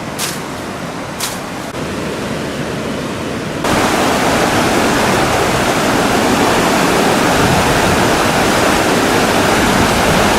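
Flash-flood water rushing steadily over a washed-out road crossing. A few seconds in, the rush suddenly becomes louder and fuller.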